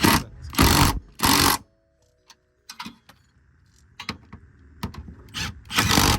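Impact wrench run in short bursts to tighten the transmission mount bolts on a BMW N54 car: three quick bursts in the first second and a half, a pause with a few small clicks, then another burst near the end.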